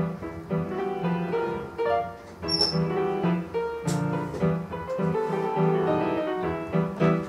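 Instrumental piano music, a run of melody notes over a repeating bass line.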